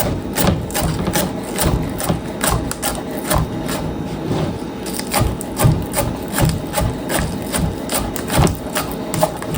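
Kitchen knife slicing through raw onion on a wooden cutting board, a steady run of crisp cuts and knocks about two a second.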